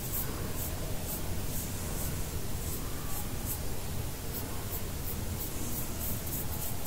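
Eyebrow pencil drawn across the eyebrow in short, light strokes: a soft, repeated scratching over a steady hiss.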